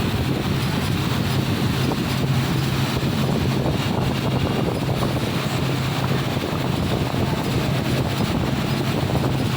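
CNC laser cutting machine running: a steady rushing noise with a low, even hum.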